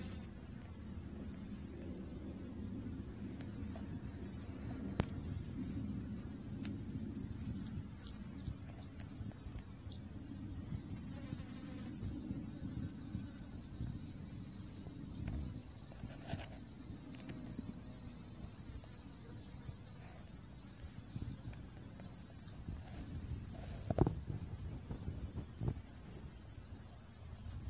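Insects, most likely crickets, trilling as one steady, unbroken high-pitched tone. There is a low rumble of wind or handling noise under it, and a single sharp tap near the end.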